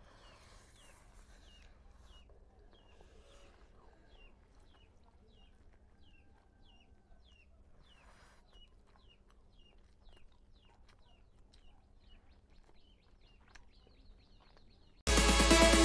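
Quiet slurping and chewing of noodles, with a bird chirping steadily in the background about twice a second. Loud electronic music cuts in near the end.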